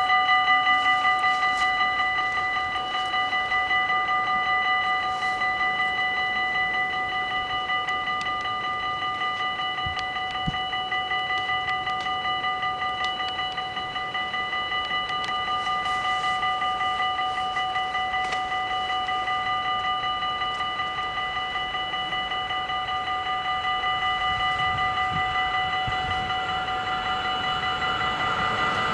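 Electric warning bells of a Dutch automatic level crossing ringing rapidly and without a break: the crossing is closed for an approaching train. Near the end the rumble of the train starts to rise.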